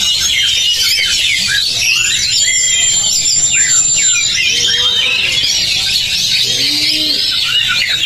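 A dense chorus of many caged oriental magpie-robins singing at once, with overlapping trills, chatter and whistles. One high, steady whistle is held for about two seconds near the middle.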